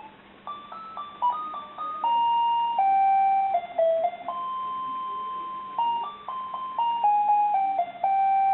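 Casio MQ-1200 alarm clock playing one of its built-in alarm melodies: a tune of plain electronic beep notes sounded one at a time, quick runs of short notes alternating with longer held ones.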